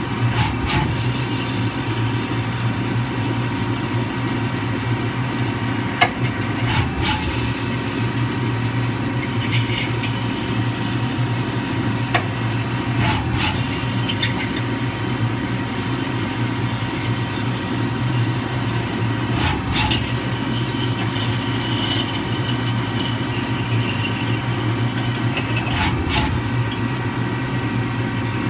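CNC lathe deep-drilling titanium under flood coolant: a steady machine hum with splashing coolant, broken about every six and a half seconds by a short knock as the drill pecks out to clear chips. A faint high whine comes in for a few seconds near the end.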